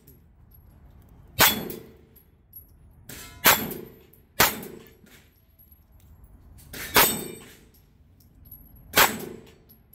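Five shots from a 9mm pistol-caliber carbine, irregularly spaced, each with a ringing clang as a steel dueling-tree paddle is hit.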